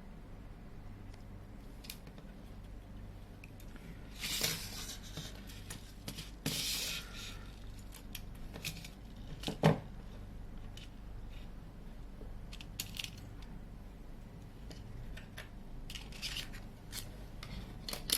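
Small clicks, scrapes and short rasps of tools and phone parts being handled on a work surface during a smartphone teardown, with one sharper knock about ten seconds in.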